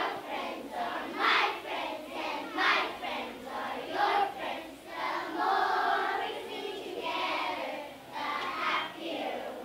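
A group of young children singing together in chorus.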